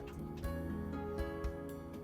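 Background music: sustained notes over a regular soft beat.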